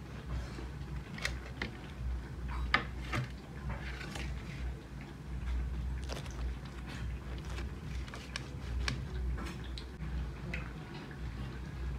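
A knife cutting through a crisp batter-fried bread sandwich on a steel plate: scattered crunches and clicks as the blade goes through the fried crust, over a steady low hum.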